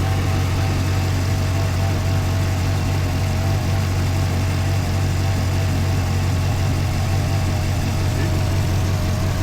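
LS3 V8 engine of a 2010 Chevrolet Camaro idling steadily. The engine has a misfire, which the mechanic puts down to worn spark plugs and plug wires.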